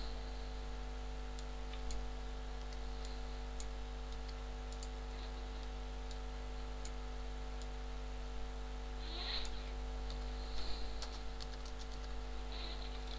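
Scattered clicks of a computer keyboard and mouse as text is typed and edited, over a steady low electrical hum.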